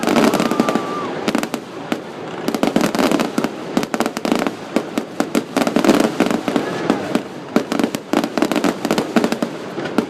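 Fireworks grand finale: a dense, continuous barrage of rapid bangs and crackling shells, several every second without a break.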